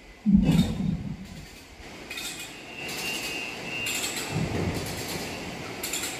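Mechanical car-park lift machinery: a heavy metal clunk about a third of a second in, then steady running with intermittent high metallic squealing as the steel platform moves.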